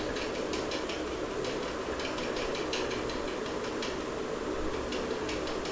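Chicken pieces sizzling in hot oil in a pan, with irregular crackles over a steady low rush, as the meat starts to release its water.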